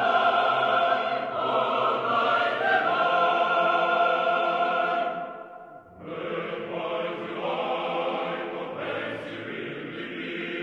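Choral music soundtrack: sustained, chant-like voices. It fades briefly about halfway through before another passage comes in.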